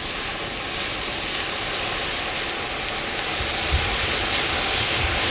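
Ground firework fountain spraying sparks: a steady rushing hiss that grows gradually louder, with a few low thumps and a sharp pop in the last couple of seconds.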